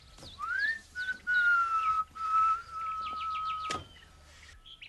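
A man whistling slowly: one rising glide into a few long held notes that sink a little in pitch, with birds chirping. A single sharp click comes near the end.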